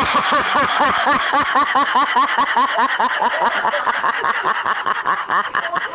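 A person laughing hard in one long unbroken run of rapid 'ha' syllables, about four a second, each rising and falling in pitch.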